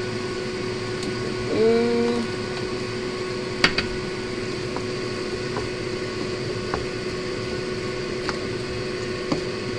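A wooden spoon stirs a simmering wok of chicken and white radish. It knocks against the pan, sharply twice about three and a half seconds in, then in a few lighter taps. Under it runs a steady fan-like hum, with a short pitched note just under two seconds in.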